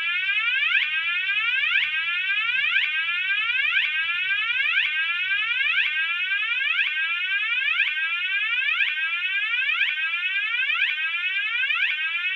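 Cooper MIN-T electronic fire alarm sounder sounding one of its alarm tones: a loud sweep rising in pitch, repeating about once a second.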